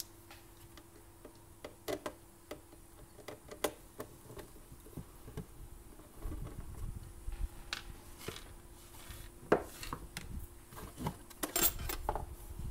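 Clicks and knocks of a screwdriver and the plastic housing of a Black & Decker Brew 'n Go coffee maker being handled during disassembly on a wooden bench. The sounds come irregularly, with a burst of louder knocks near the end as the housing is lifted and turned, over a faint steady hum.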